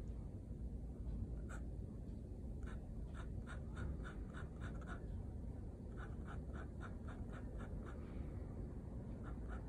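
Metal nib of a dip pen scratching across watercolor paper in quick hatching strokes, about four a second, in runs of several with short pauses between.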